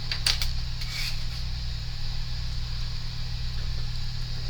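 Steady low electrical hum with a faint hiss, and a few light clicks in the first second or so.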